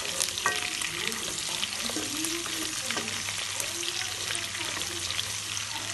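Chicken pieces and sliced onion sizzling and crackling in hot oil in a kadai, stirred with a wooden spatula that scrapes and knocks against the pan.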